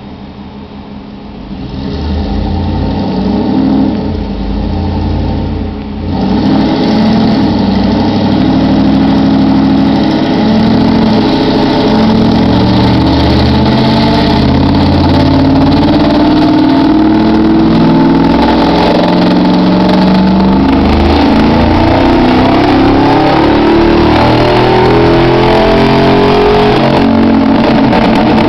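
Supercharged 5.4-litre V8 of a 2003 Ford SVT Lightning pickup on a chassis dyno: it runs quietly at first, revs up briefly, then from about six seconds in makes a long, loud full-throttle pull with the pitch climbing slowly.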